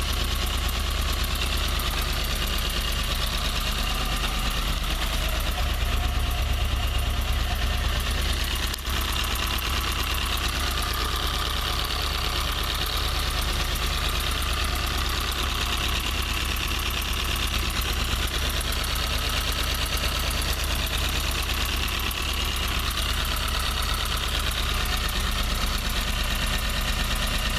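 Toyota 4A-GE 20-valve blacktop inline-four idling cold, with a steady ticking from the exhaust header.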